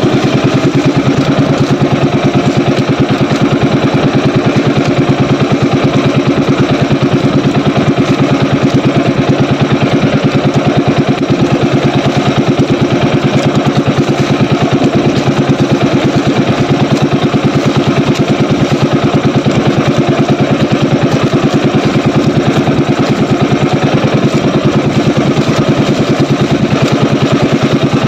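Small boat engine of a motorized outrigger banca running steadily underway, a loud even drone with a fast, regular pulse.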